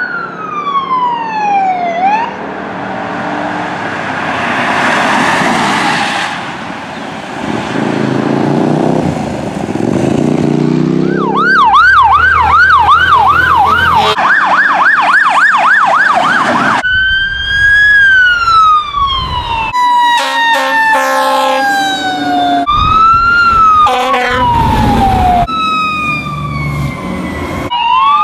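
Electronic emergency-vehicle sirens in a series of cut-together passes. It opens with a slow falling wail, then a stretch of loud rushing engine and road noise as a vehicle goes by. After that come a rapid yelp and further wail and yelp sweeps, with the tone changing abruptly every few seconds.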